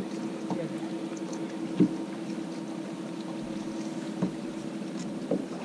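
Steady electric hum of a bass boat's bow trolling motor, with a few light knocks on the deck. The loudest knock comes about two seconds in.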